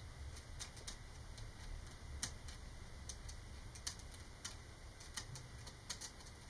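Black paint pen's tip tapping and dragging across the ridges of a corrugated model-rocket wrap: faint, irregular ticks, about two a second, the loudest a little after two seconds in, over a low steady hum.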